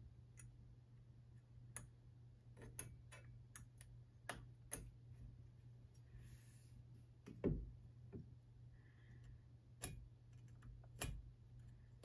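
Faint scattered clicks and taps of a combination square being handled against door trim, its steel rule shifted and set against the casing, with one louder knock about seven and a half seconds in.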